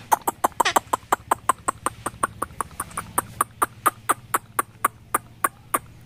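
Indian ringneck parakeet making a fast, even run of short sharp clicks, about five a second and slowing a little toward the end.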